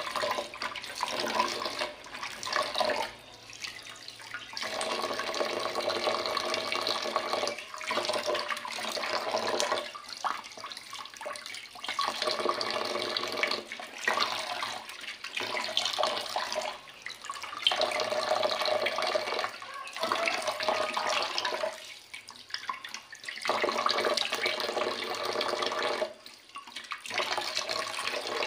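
Tap water running into a steel pot of squid in a stainless-steel sink, splashing as a hand swishes the squid around in it. The sound swells and dips every few seconds as the hand moves through the stream.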